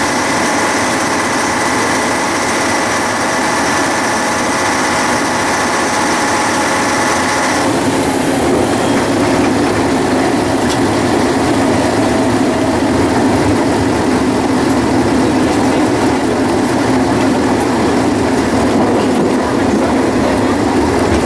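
Vintage Triangel railcar heard from inside its cab, running along the track. A steady engine note with several tones cuts off about eight seconds in, leaving the rumble of the wheels rolling on the rails.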